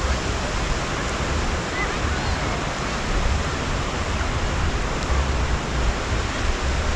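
Steady hiss of surf washing in at the sea's edge, mixed with wind buffeting the microphone in low, gusty rumbles.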